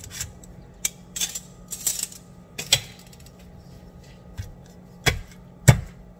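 Metal tongs clicking and tapping as a grilled chicken leg is set down on a plastic cutting board. About five seconds in, a stone pestle starts pounding the chicken on the board with two heavy thuds, smashing it flat for ayam geprek. A low steady hum sits underneath.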